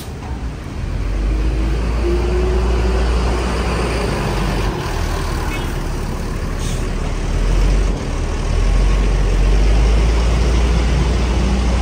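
Tour bus diesel engine running close by: a loud, steady low rumble.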